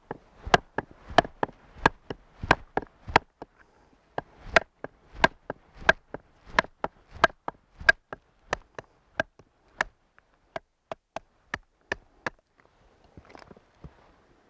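A stick of fresh willow used as a mallet strikes the back of a knife blade over and over, about three sharp knocks a second, driving the blade down through a small round of wood to split a flat board off it. The knocking stops near the end, followed by faint handling of the split wood.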